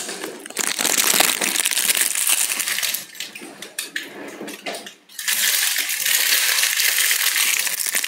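Close rustling and rubbing with fine crackles, in two stretches of about two and a half seconds each with a quieter pause between.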